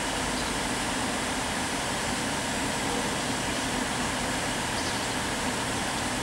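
Virgin Voyager diesel multiple unit's underfloor diesel engines running steadily, an even drone with no change in level.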